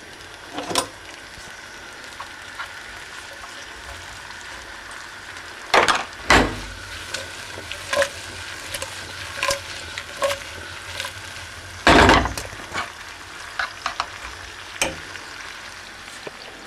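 Sliced artichokes frying in olive oil with a splash of water in a frying pan: a steady sizzle with scattered crackles and pops. A few loud knocks stand out, the biggest about six and twelve seconds in.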